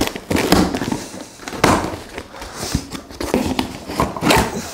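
A cardboard box being opened by hand: flaps and packaging rustling and scraping, with irregular sharp crackles and knocks.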